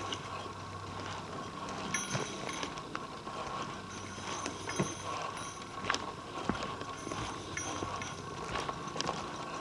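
Irregular footsteps on a forest trail, a step every second or so, over a faint steady hum.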